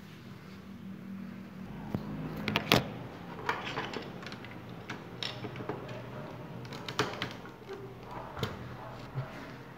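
Irregular clicks and knocks over a low steady hum. The loudest are a few sharp knocks about two and a half to three seconds in.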